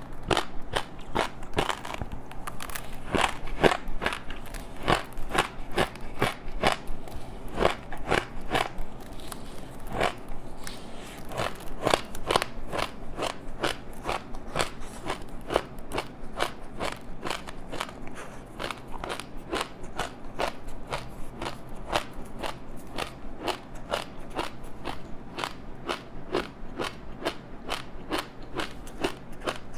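Chewing a rice snack wrapped in crispy dried seaweed: a steady run of crunching and crackling bites, about three crunches a second.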